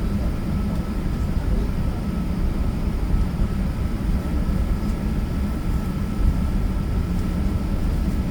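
Airbus A380-800 cabin noise heard on board: a steady low rumble from the engines and airflow, with a faint steady whine above it.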